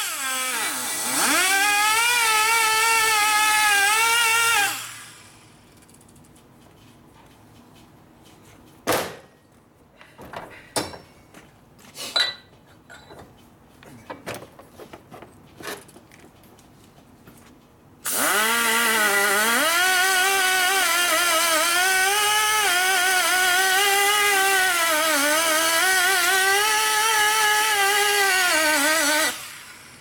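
A high-speed rotary power tool cutting metal runs twice, at first to about four and a half seconds in and again from about eighteen seconds to near the end. Its whine sags and recovers in pitch as it bears on the work. Between the two runs there are scattered clicks and knocks.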